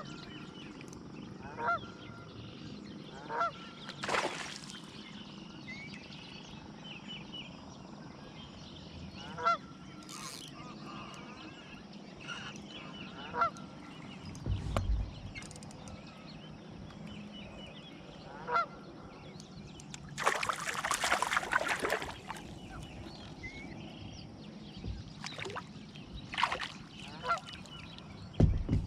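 Geese honking, short single calls now and then, over a steady background. About two-thirds of the way through comes a louder rush of noise lasting about two seconds.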